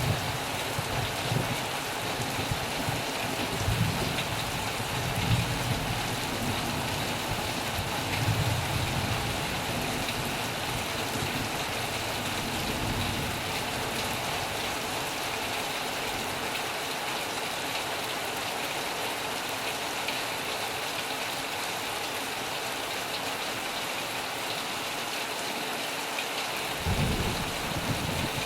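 Heavy rain falling steadily on a metal roof, with low rumbles of thunder that come and go through the first half and swell again briefly near the end.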